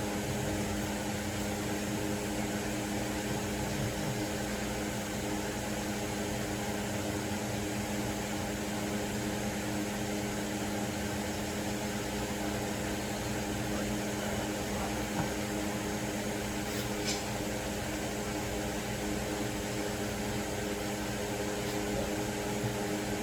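Steady machine hum, like a fan or similar motor, with a constant hiss and an unchanging pitch; a faint click about 17 seconds in.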